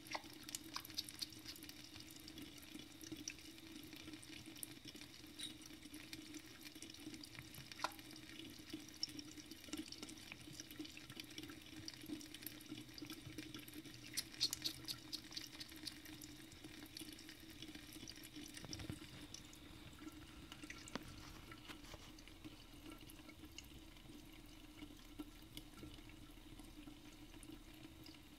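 Thin stream of water running from a bathroom faucet into the sink, with a cat lapping at the stream: runs of quick, soft wet clicks over a faint trickle and a steady low hum.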